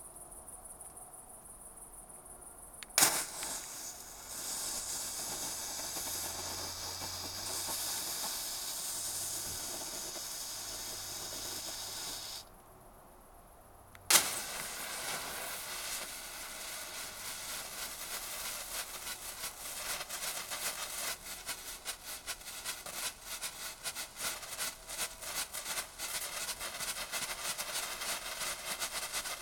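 Ground fireworks set off electrically: a sharp pop about three seconds in, then the steady hiss of a burning coloured flare. After it dies down, another pop comes about fourteen seconds in, followed by hissing that fills with rapid crackling from about halfway on.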